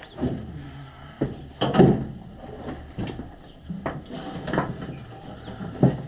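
Irregular knocks, thumps and shuffling of a person clambering into a car's cabin and bumping against the body and interior, with the loudest thump about two seconds in.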